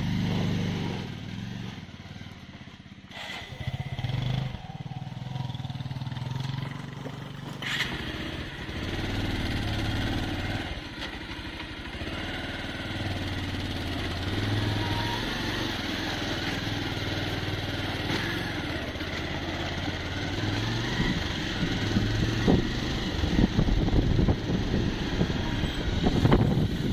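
Motorcycle engine running while riding a rough off-road track, its note rising and falling with the throttle, with road and wind noise underneath. It grows louder and rougher near the end.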